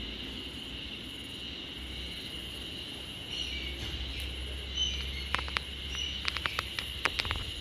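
Steady high-pitched drone of insects singing. About halfway through, a few short chirps come in, followed by a quick run of sharp ticks, several a second.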